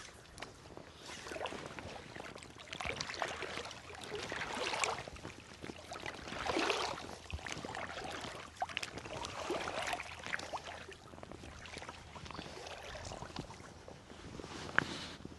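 River water sloshing and swishing in repeated surges, each swelling and fading within a second or two, with small clicks in between.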